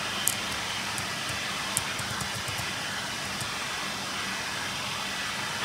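Steady hiss with a faint low hum: the background noise of the narration's recording. Two faint clicks come about a quarter second and nearly two seconds in.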